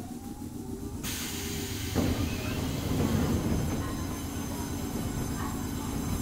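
Cabin running sound of a Gakunan Railway 7000 series single-car electric train (ex-Keio 3000 series). The wheel and motor noise swells about a second in as the car gets under way, then runs on steadily.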